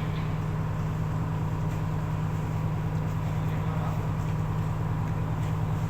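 Roll-on/roll-off ferry's engine machinery running at a steady idle, a constant low hum without change.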